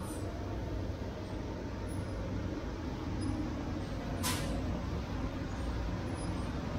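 Steady low rumble of a vehicle repair shop's background, with one short hiss about four seconds in.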